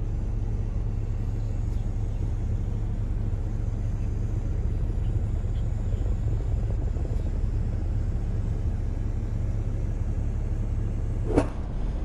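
Steady low rumble of a car heard from inside the cabin as it moves slowly in queued traffic, with a single sharp click near the end.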